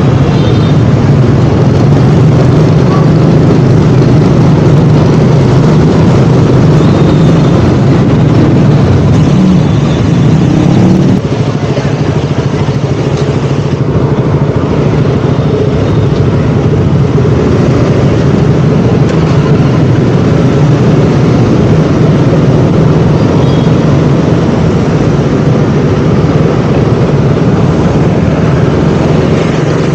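KTM Duke 200's single-cylinder four-stroke engine running steadily under way on a motorcycle ride, with road and wind noise. The engine pitch rises briefly, then the level drops a little about eleven seconds in.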